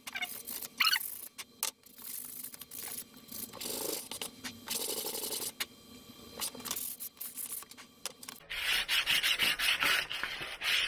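Sanding the edge of a hot-wire foam-cutting template down to shape: irregular rubbing, scraping strokes, becoming a faster, louder, steady rasping about eight and a half seconds in.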